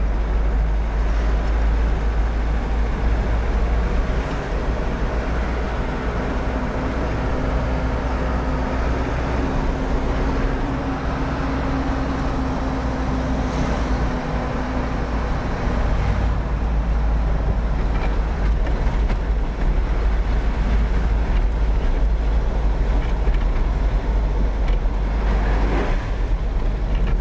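Steady engine and road noise inside the cabin of a vehicle being driven, with a strong low rumble.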